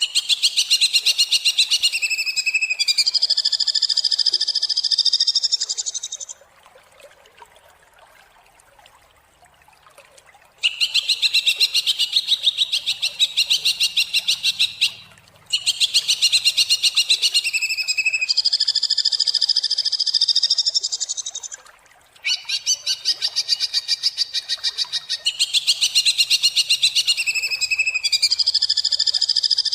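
Greater green leafbird (cucak ijo) singing in harsh, rapid-fire bouts: fast runs of sharp, high notes, some phrases drawn out into a steady harsh buzz. Short breaks fall between bouts, and a longer pause of about four seconds follows the first.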